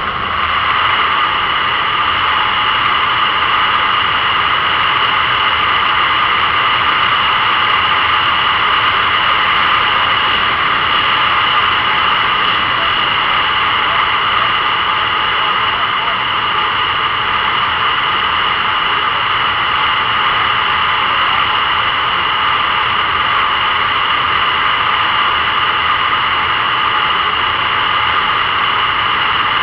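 Motorcycle cruising at steady highway speed, heard through a bike-mounted camera: an even rush of wind and road noise with a high, steady ringing tone in it.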